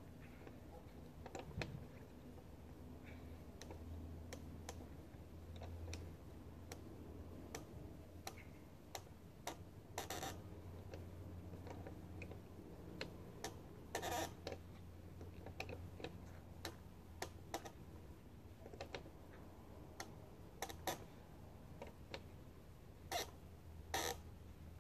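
Scattered faint clicks and metallic knocks of hand tools as a lineman works on an overhead power-line connection at the top of a wooden pole, a few louder clinks standing out, over a low steady background hum.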